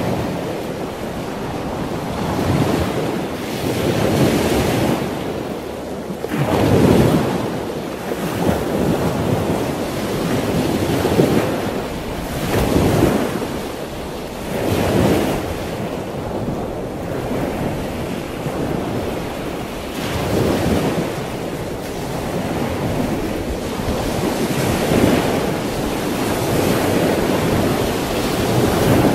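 Wind and choppy water: a steady rush of wind and waves that swells into louder surges every few seconds.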